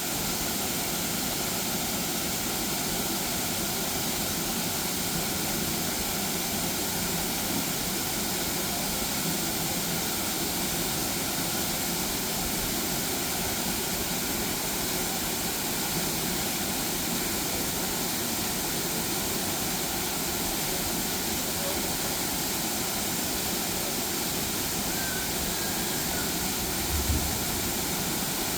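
Waterfall rushing steadily, a constant even roar of falling water, with a brief low thump near the end.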